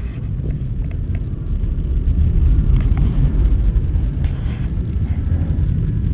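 Low, steady rumble of a C-130 Hercules's four turboprop engines climbing out after takeoff, heard from a distance; it grows louder about two seconds in.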